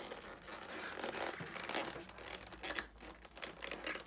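Cardboard and packaging crinkling and tearing as a small boxed item is worked out of a cosmetics advent calendar door, with irregular crackles and rustles.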